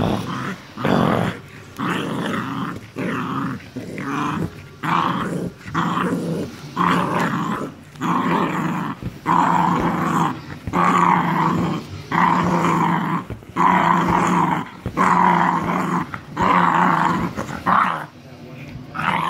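An English Mastiff and a Morkie growling in play as they wrestle: a long run of short growls, one after another with brief breaks between them, fading near the end.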